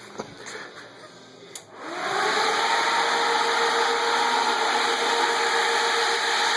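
The sand rail is switched on. After a click, a motor spins up within a fraction of a second and then runs steadily with an even whine over a rushing noise.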